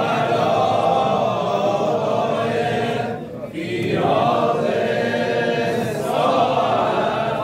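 Many men's voices chanting together in unison, with a short break a little under halfway through before the chant picks up again.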